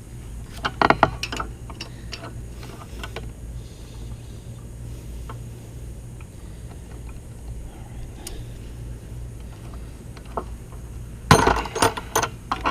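Metal hand tools clicking and clinking on engine parts, in two clusters of quick sharp clicks, about a second in and again near the end, with a few lighter clicks between, over a steady low hum.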